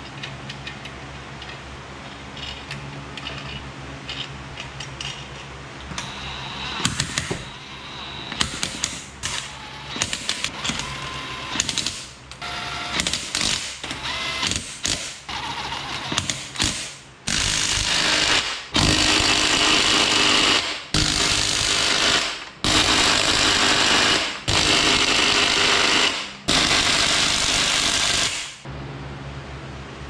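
Cordless impact wrench hammering the lug nuts tight on a truck wheel, in about six bursts of one to two seconds each with short pauses between them. Before these come shorter bursts and metallic clicks as the nuts are run on.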